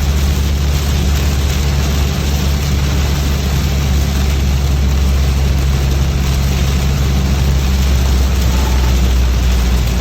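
Inside a car driving in heavy rain: a steady hiss of rain and wet road noise over a low engine drone.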